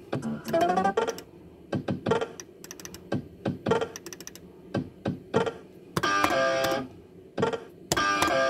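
Fruit machine in play: a run of sharp clicks and clunks from buttons being pressed and reels stopping, with short electronic jingles from the machine, a rising one about a second in and a held chord twice later on.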